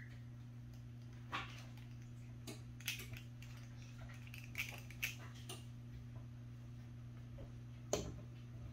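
Faint scattered clicks and light taps from a squeeze-handle cookie scoop dropping batter onto a baking sheet, with one sharper knock near the end as the scoop goes back into a stainless steel mixing bowl. A steady low hum runs underneath.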